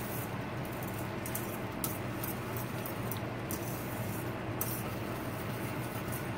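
Wire whisk stirring thick cream gravy in a metal skillet, its wires scraping and clinking lightly against the pan in quick, irregular strokes, over a steady low hum.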